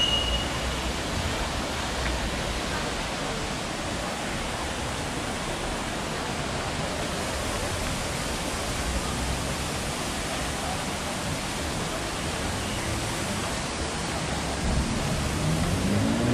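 A steady, even rushing noise with no clear pattern. Near the end a car engine revs up, rising in pitch.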